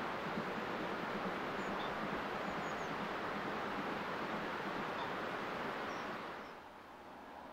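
Steady outdoor rushing like wind, with a few faint bird chirps. It drops away to a quieter hiss about six seconds in.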